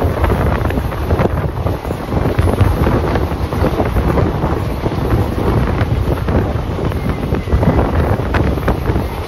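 Indian passenger train coach running at speed, with heavy wind buffeting on the microphone and irregular knocks and clatter from the coach and wheels.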